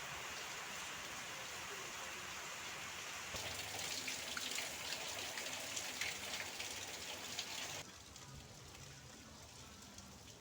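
Rain falling steadily, an even hiss with the patter of drops hitting surfaces, which turns denser and sharper about three seconds in and then drops abruptly to a quieter, duller rain near the eight-second mark.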